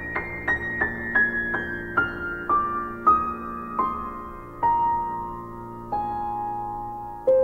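Background piano music: a falling line of single notes, each struck and left to ring over lower held tones. The notes slow from about three a second to one every second or so.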